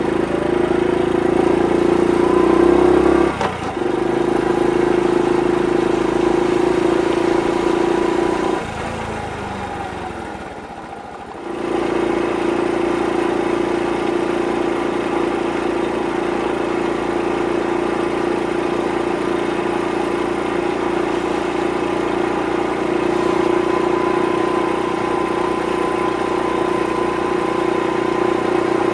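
Honda Super Cub 50 (AA01, carbureted) single-cylinder four-stroke engine and exhaust heard while riding. About three and a half seconds in it dips sharply and falls in pitch. From about nine seconds it drops to a quieter lull, then picks up again a little before twelve seconds and runs steadily.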